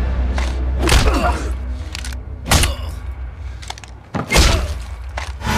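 Horror film soundtrack: a low droning music bed punctuated by several sharp hits, the loudest a little after four seconds in.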